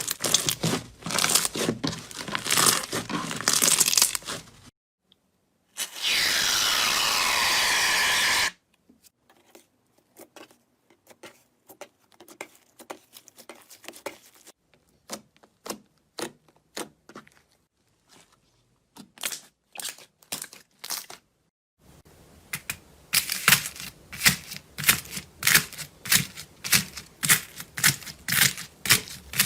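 Slime being handled, squeezed and poked, giving crackling, popping clicks across a few short clips. There is a steady hiss for about three seconds near the start, a stretch of sparse quiet clicks, and near the end rapid, evenly spaced pops.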